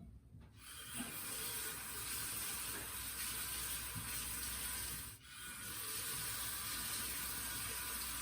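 Water running from a tap in a steady rush, starting about half a second in, with a brief break about five seconds in.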